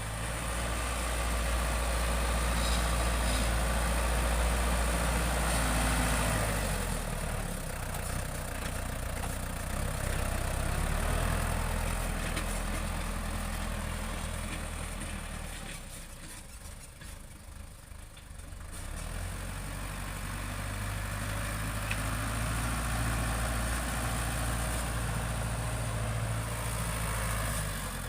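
Tractor engine running steadily at a low, even pitch. Its tone shifts about a quarter of the way in, and it grows quieter for a few seconds past the middle before coming back up.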